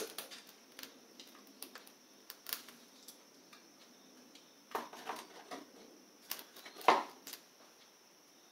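Scattered clicks and clinks of a metal hand tool working on a lawn tractor engine, with one louder knock about seven seconds in.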